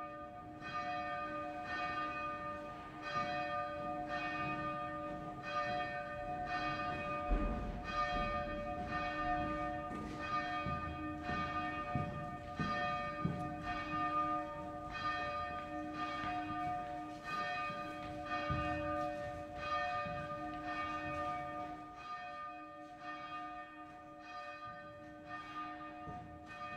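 A monastery bell rung in steady repeated strokes, about one and a half a second, each stroke renewing the same ringing tone, a little softer near the end.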